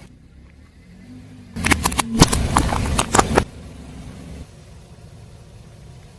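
Car running slowly with a low engine rumble while its tyre rolls over and crushes crunchy objects: a rapid string of cracks and snaps lasting a little under two seconds, starting about a second and a half in.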